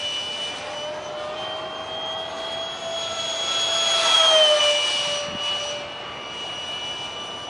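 70mm electric ducted fan of a foam RC jet whining steadily in flight. The whine grows louder and peaks about four seconds in, then its pitch drops slightly and holds lower.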